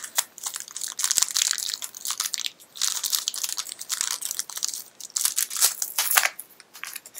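A small blind-bag wrapper crinkling and crackling in hand as it is worked open, coming in several bursts with short pauses between them.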